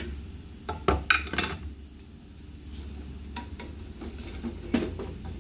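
Metal wire-mesh strainer and wooden spatula knocking and scraping as fried pork rinds are scooped out of hot lard and tipped into a pot, the loudest clatter about a second in, with a few lighter knocks later, over the sizzle of the frying fat.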